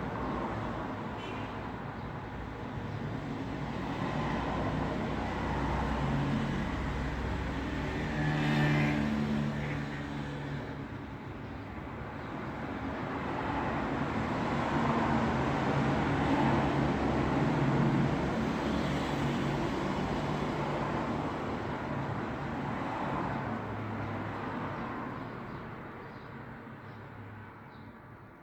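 Road traffic: vehicles passing one after another, their engine hum and tyre noise swelling as each goes by, fading away near the end.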